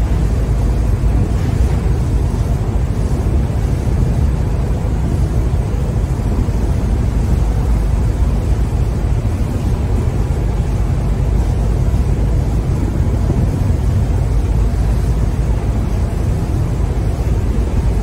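Steady rushing of a ship's churning wake water over a continuous deep rumble, with no separate events.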